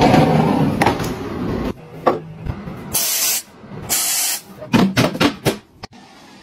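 Aerosol shoe-deodoriser spray can hissing in two short bursts into a sneaker, about three seconds in and again a second later. A louder, mixed clatter fills the first second or two, and a few sharp clicks follow the spraying.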